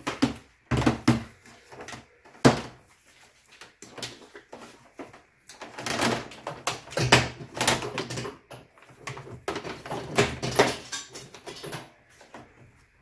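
Irregular knocks, clatter and rustling from an LED light wiring harness being handled and its twisted wires untangled, with one sharp knock about two and a half seconds in.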